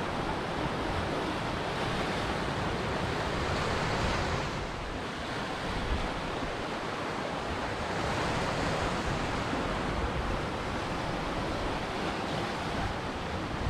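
Ocean surf: waves breaking and washing up a shore in a continuous rush, easing briefly about five seconds in before building again.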